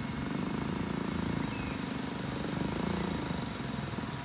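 A 10-ton truck crane's diesel engine running steadily while the crane holds a 40 ft container aloft. The engine eases off about three and a half seconds in.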